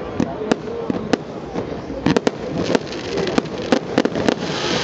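Fireworks display: sharp bangs and crackles of bursting shells at irregular intervals, coming more thickly in the second half. Near the end a steady hiss builds up under them.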